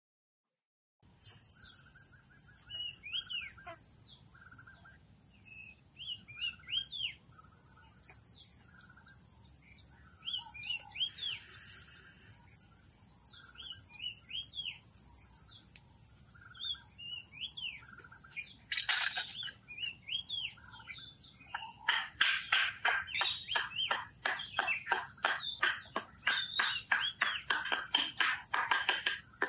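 Forest ambience: birds chirping and calling over a steady high-pitched insect drone. About two-thirds of the way in, a fast series of sharp repeated notes comes in, about three a second, louder than the rest.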